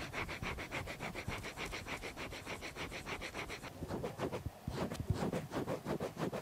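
Coloured pencil scratching on paper in quick back-and-forth shading strokes, many in a row, with a brief lull a little past the middle.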